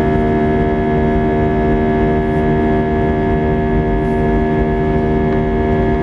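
Airbus A320's jet engines heard from inside the cabin during the climb after takeoff: a loud, steady drone made of several held tones over a rushing noise.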